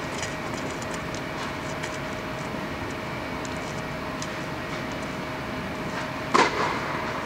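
Steady hum of an indoor tennis hall with one constant tone, with faint ticks of tennis balls on the court. About six seconds in comes a single sharp hit with a short echo.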